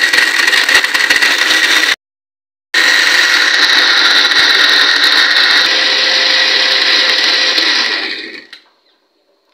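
Electric blender running, blending bananas, dates and milk into a milkshake. It stops abruptly about two seconds in, starts again a moment later, and winds down about eight seconds in as it is switched off.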